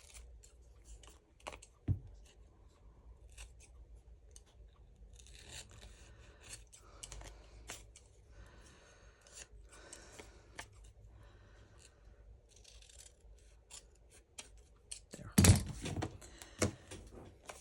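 Scissors snipping through thin, almost see-through craft paper: a scattering of short crisp snips, busiest in the middle. A louder thump comes near the end.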